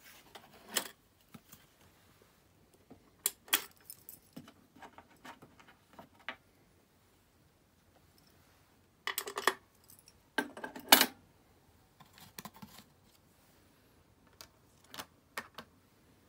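Handling clatter at a BSR record changer: sharp clicks and clinks of vinyl records and the changer's spindle and plastic parts as the LP is lifted off and a 7-inch single is set on the platter. It comes in short clusters with quiet between, loudest about ten to eleven seconds in.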